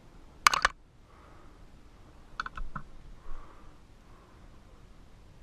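Sharp clicks and clacks of small hard objects being handled: a quick cluster of three about half a second in, then a scatter of smaller clicks a couple of seconds later.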